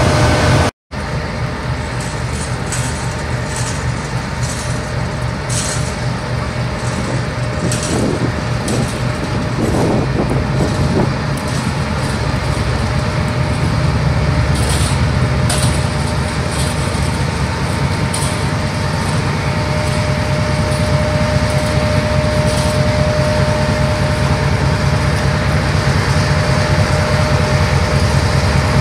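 Pakistan Railways diesel-electric locomotive running with a steady low engine rumble as it slowly pulls the Millat Express out. The rumble grows louder as it nears, with light clicking from the wheels early on and a thin steady whine for several seconds in the second half.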